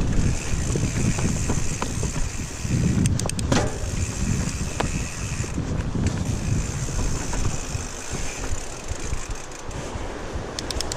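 Mountain bike riding down a dirt forest singletrack: a rough, uneven rumble of tyres and bike over the trail, mixed with wind buffeting the microphone. A few sharp clicks or rattles come about three seconds in and again near the end.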